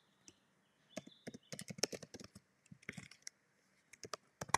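Typing on a computer keyboard: a quick run of key clicks starting about a second in, a short pause, then a few more keystrokes near the end.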